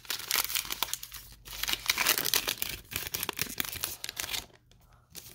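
Plastic wrapper of a Diamond Kings baseball card pack being crinkled and torn open. The crackling stops suddenly about four and a half seconds in.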